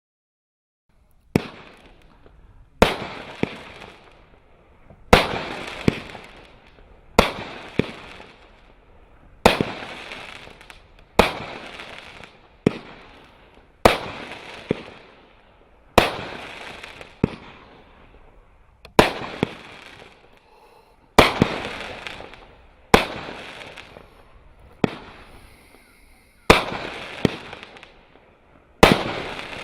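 A 20-shot, 500-gram consumer firework cake firing its shots in steady succession, roughly one every one and a half to two seconds, starting about a second and a half in. Each shot is a sharp bang followed by a fading crackle from the crackling-palm breaks.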